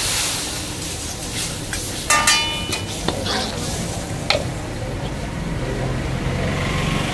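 Food sizzling in a pan while it is stirred, with metal utensils clinking against the pan: a ringing clank about two seconds in and a few sharper knocks after it, over a low steady hum.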